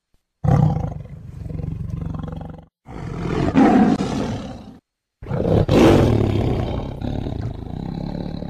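A big cat's deep roars, three long ones in a row with short pauses between.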